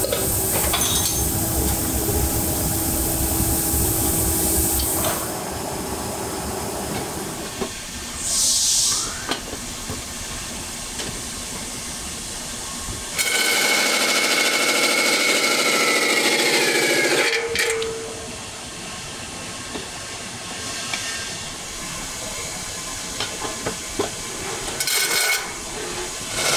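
Workshop machine noise, with a short hiss about eight seconds in. Mid-way a lathe's cutting tool turns a spinning cast aluminium wok for about four seconds, giving a loud, steady high squeal that drops in pitch just before it stops. Quieter machine running follows.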